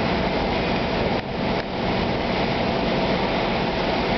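R46 subway train running steadily away along the elevated track as it leaves the station, a continuous train noise with two brief dips in level a little over a second in.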